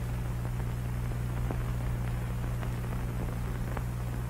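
Steady low hum and hiss of an old film soundtrack, with faint scattered crackles.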